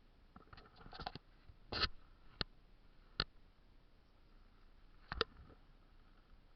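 Hiking boots scuffing and tapping on sandstone rock during a scramble climb: a handful of sharp, irregular steps, a cluster of scuffs early on, then single taps, with the loudest about two seconds in and five seconds in.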